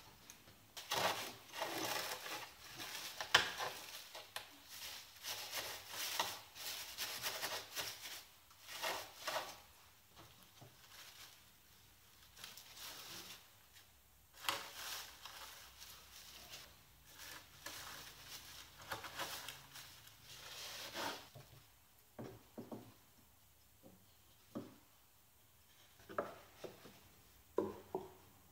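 Rubber-gloved hands rustling and rubbing loose black fibrous shavings as they are pressed into place, in irregular scratchy bursts. The second half has fewer, sharper knocks and handling sounds.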